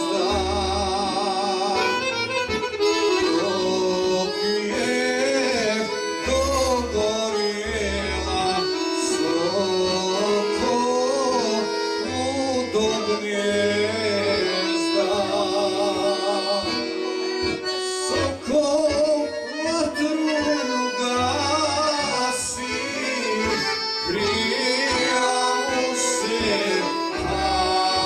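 A live Bosnian sevdah song: a male voice singing with vibrato into a microphone, backed by two piano accordions and an electronic keyboard with regular low bass notes.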